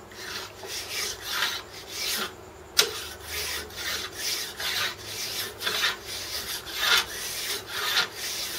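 Body filler file with a wooden backing rasping back and forth across an aluminium casting, about two strokes a second, with one sharp tap about three seconds in. The strokes are taking the surfaces down a couple of thousandths of an inch below the plate.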